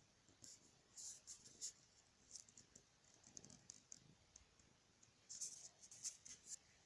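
Faint, scattered crackling clicks in short clusters from a hand stroking a cat's fur close to the phone's microphone, over near silence.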